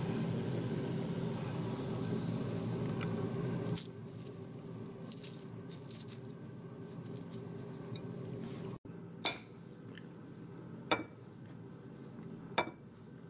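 Ginkgo nut shells being picked off a ceramic plate by hand: small light clicks and crackles, then three separate sharp clinks on the plate, each ringing briefly. A steady low hum runs under the first four seconds and then stops.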